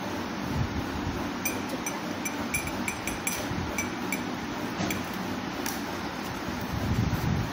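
Metal spoon clinking against a steel bowl and a glass while scooping whipped dalgona coffee foam onto milk: a run of light, ringing clinks, with a low rumble that grows loudest near the end.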